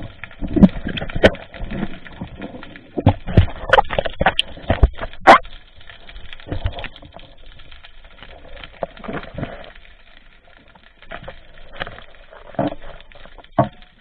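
A string of irregular clicks and knocks heard underwater, from a spearfisher's speargun and gear knocking against the camera housing. They come thickest in the first few seconds and more sparsely after that.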